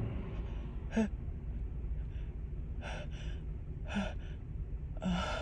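A woman with a head cold taking four short, catching gasps, some with a faint voiced 'ah', as a sneeze builds up.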